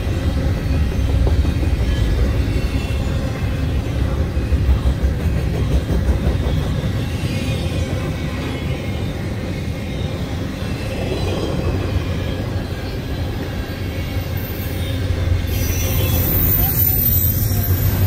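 Double-stack intermodal freight train's container well cars rolling past: a steady, loud rumble of wheels on rail.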